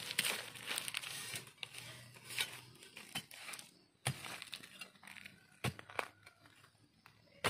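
Dry grass stalks and leaf litter rustling and crackling as a gloved hand clears the ground, with a few sharp snaps in the second half.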